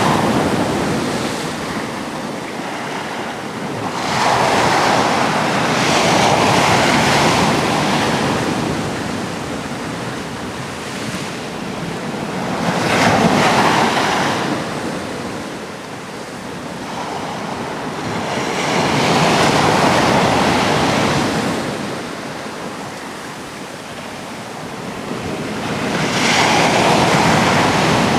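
Atlantic sea waves breaking and washing back, swelling up and ebbing away about every six to seven seconds.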